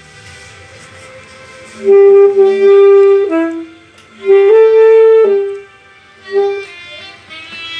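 Saxophone playing long held notes, each lasting about a second, with short breaks between them and a brief note near the end.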